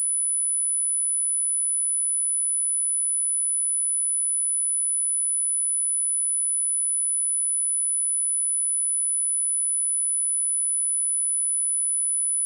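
A steady, unbroken pure sine-wave test tone at 9975 Hz, a very high, piercing single pitch, generated electronically for testing speakers and shaking water or dust out of them.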